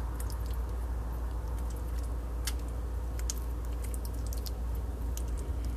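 Faint, irregular small clicks and sticky squelches from hands pressing macaroni and cheese into a raw chicken wing, over a steady low hum.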